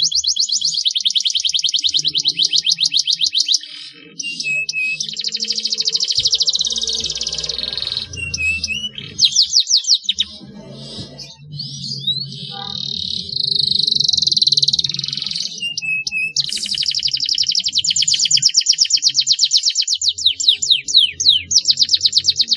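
Domestic canary singing: long runs of fast, rolling high trills broken into phrases with short pauses between them.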